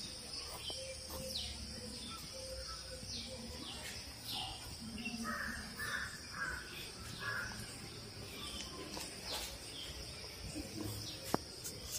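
Crows cawing, a run of four caws in quick succession about five seconds in, with smaller birds giving short falling chirps around them.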